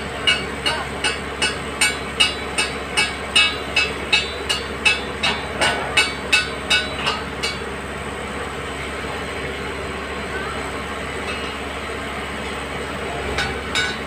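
Hyundai wheeled excavator's diesel engine running steadily. Over it comes a regular series of sharp clicks, about two and a half a second, which stops about halfway through.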